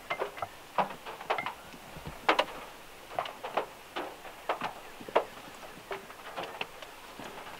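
Large raindrops dripping from overhanging trees onto a car roof, heard from inside the car as irregular taps of varying strength.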